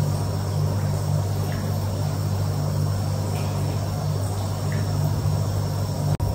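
Steady low machine hum in a small tiled bath room, with a few faint drips. The sound cuts out for an instant near the end.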